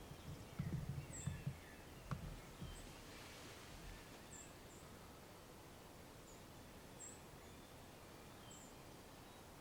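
Quiet outdoor ambience with small birds giving short, very high chirps every second or so. Low rustling and a single click come in the first two seconds.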